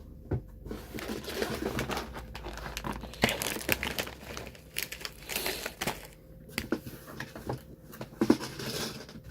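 Plastic snack wrappers and packaging crinkling and rustling as products are handled and set down, with scattered light knocks and clicks.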